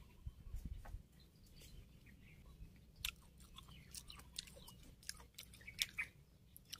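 Faint chewing of raw lime slices: small wet crunches and clicks scattered irregularly.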